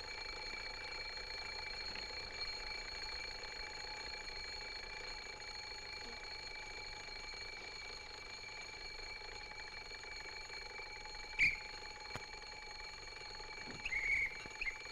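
An alarm clock's bell ringing continuously, one steady unbroken ring. A single sharp knock sounds about eleven seconds in, and a few short sounds come near the end.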